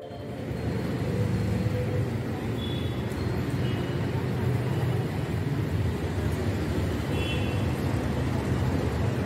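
Steady low rumble of street traffic, with faint indistinct voices mixed in.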